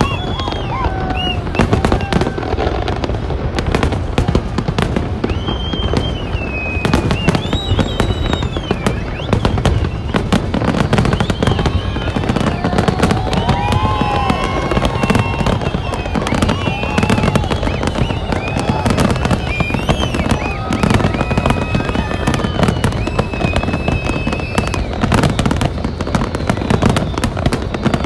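Aerial fireworks display going off in a dense, continuous barrage: many shell bursts and crackles overlapping with no break.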